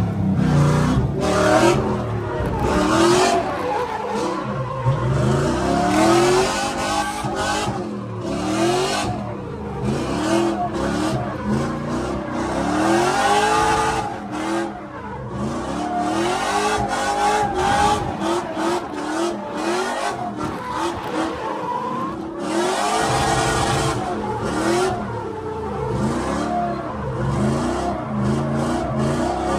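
Drift car's engine revving up and dropping back over and over, with tyres squealing and skidding through the slides, heard from inside the car.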